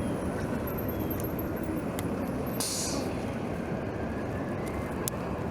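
Steady rushing noise of riding a bicycle through city traffic, with wind and road noise. A short, sharp hiss comes about two and a half seconds in.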